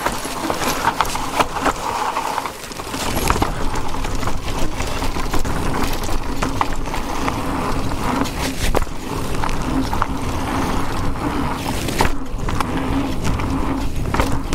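Electric mountain bike riding a rough forest trail: tyres rolling over dirt and roots, with frequent rattling knocks from the bike. It gets louder about three seconds in as the bike picks up speed.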